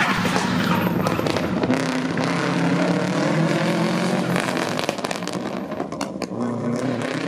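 A rally car's engine running hard as the car drives past on a tarmac stage. Its note dips briefly about six seconds in, then picks up again.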